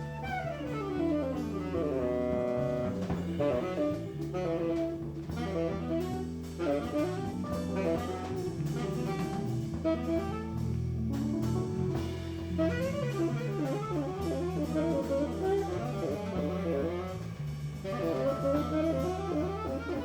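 Jazz quartet of saxophone, keyboard, bass and drums playing. Fast rising and falling melodic runs sit over a steady bass line and drums with cymbals.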